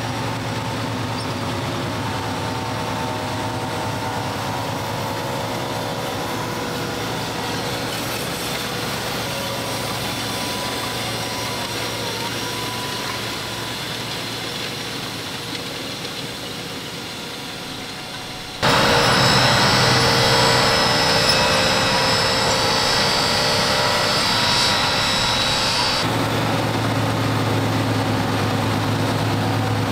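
Fendt 939 Vario tractor's six-cylinder diesel engine running steadily under load while pulling a planter, with a steady whine over it. About two-thirds of the way through the sound changes abruptly to a louder, brighter run with a strong high whine, which settles back toward a deeper engine sound near the end.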